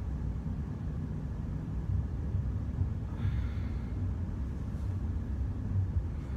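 Steady low room rumble, with a short breath about three seconds in.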